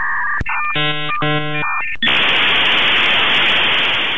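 Electronic beeping tones, a click, and two short buzzing pulses, then a loud burst of white-noise static from about two seconds in: garbled machine sounds standing in for a wheelchair user's computer speech device, subtitled as words.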